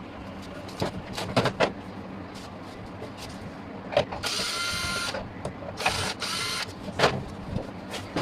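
Scattered clicks and taps of tools and parts being handled at a repair bench, with two short hissing bursts, one carrying a steady whine, about four and six seconds in.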